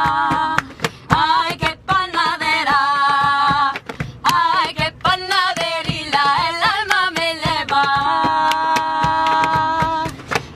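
A woman singing a traditional folk song with no instruments, holding long ornamented notes with wavering pitch between short pauses, while a rhythm of sharp claps or slaps is beaten with the hands.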